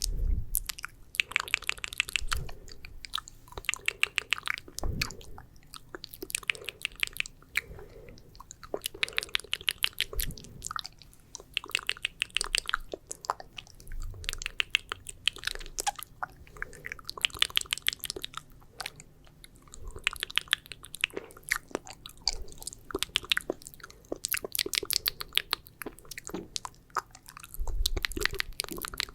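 Wet, sticky ASMR mouth sounds: saliva clicks and smacks of 'spit painting', coming in rapid clusters of clicks a second or two long with short pauses between.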